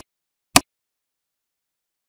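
Two short, sharp clicks, one right at the start and one about half a second in, then silence.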